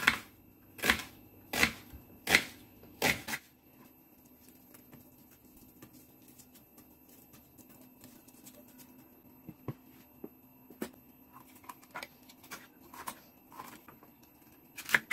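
Kitchen knife chopping through an onion onto a wooden cutting board: five sharp chops about three-quarters of a second apart, then faint scattered taps and clicks as the slices are handled, with one louder click near the end.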